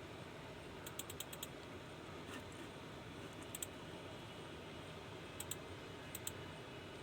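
Faint computer keyboard and mouse clicks over a steady low hiss: a quick run of about five clicks about a second in, then a single click and several pairs of clicks every second or two.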